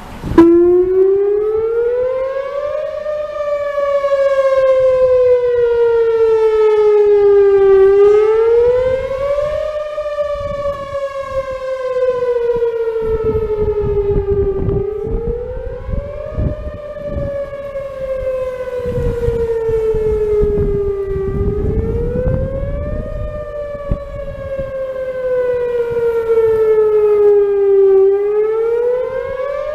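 Whelen WPS-4008 electronic outdoor warning siren switching on abruptly and sounding its wail tone, which sweeps slowly up and down in pitch about once every seven seconds. It is a scheduled test on which this unit plays only the wail and not its usual voice message.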